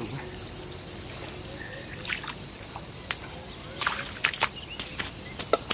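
Insects droning steadily at one high pitch, with a scattered run of sharp clicks and knocks through the second half.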